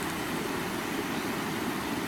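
Stream water running, a steady, even rush.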